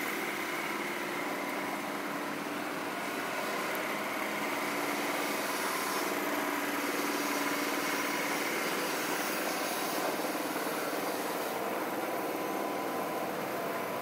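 Compact front-loader tractor's engine running steadily as the tractor drives about.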